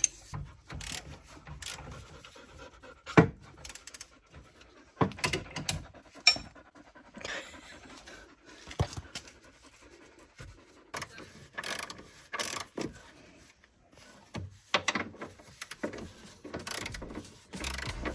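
Irregular clicks, knocks and scrapes of hand tools working on car suspension parts, with short rushing noises in between.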